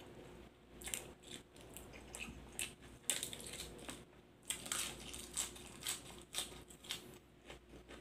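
Crisp raw cabbage leaves being torn by hand and crunched while chewing, an irregular run of crackles and crunches.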